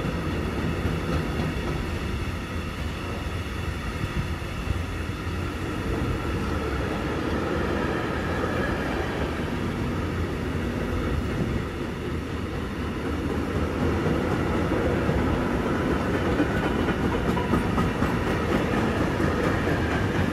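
Container wagons of a freight train rolling past, a steady noise of steel wheels on the rails with faint ringing tones above it, growing a little louder in the last few seconds.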